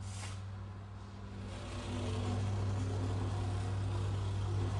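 An engine running with a steady low hum, growing louder and fuller about two seconds in.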